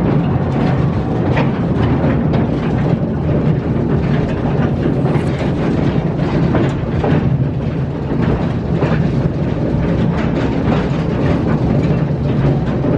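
Coal-mine man-riding rail car running along an underground track: a steady, loud low running noise of wheels on rails, with scattered clicks and rattles throughout.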